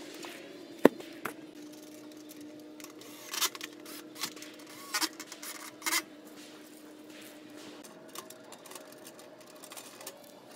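Corrugated galvanized-steel garden bed panels being handled and fastened together: a sharp metal clank about a second in, then a few short mechanical bursts from a cordless drill driving the bolts.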